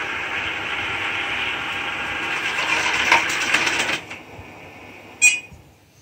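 ILIFE A4S robot vacuum cleaner running with a steady whir from its suction motor and brushes, with a rattle of clicks shortly before it cuts off about four seconds in. A short electronic beep follows about a second later.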